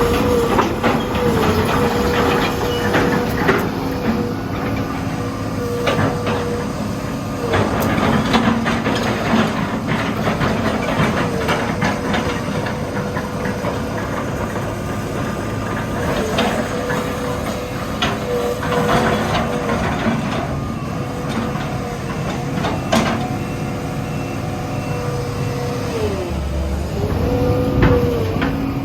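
Hitachi EX200-2 excavator's Isuzu 6BD1 six-cylinder diesel running steadily, its pitch sagging briefly several times as it takes load, deepest near the end, with repeated clanks and knocks over it.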